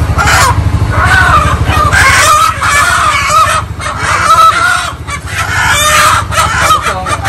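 Many village chickens calling from their cages, with clucking and roosters crowing overlapping throughout. A low steady hum runs underneath for the first couple of seconds.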